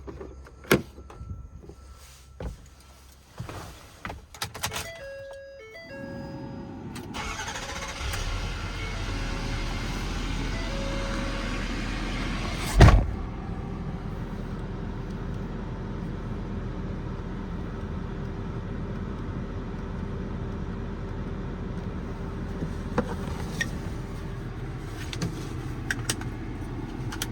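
Ford 6.7 Power Stroke diesel cold start: a few clicks and short dashboard warning chimes, then the engine cranks, catches about seven or eight seconds in and settles into a steady idle. A single loud knock is heard about halfway through.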